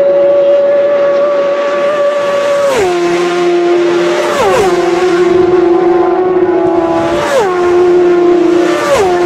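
Racing superbikes passing flat out one after another, each engine note holding high and then dropping sharply in pitch as the bike goes by. About four pass in quick succession, the first just under three seconds in.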